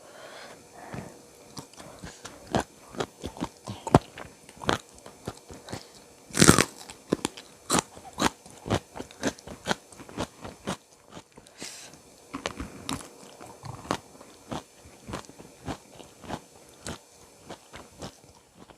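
Close-miked eating: a person biting and chewing with crisp crunches and wet clicks, the meal being spicy chicken feet with raw vegetables. There are many small crunches throughout, with one loud crunchy bite about six and a half seconds in.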